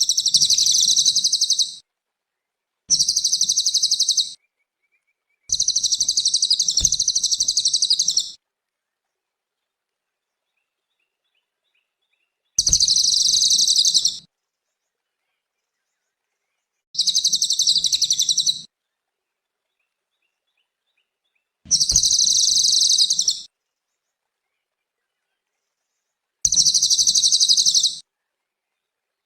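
Cililin songbird singing a high, rapidly trilled phrase again and again, each phrase lasting about one and a half to three seconds, with several seconds of silence between phrases.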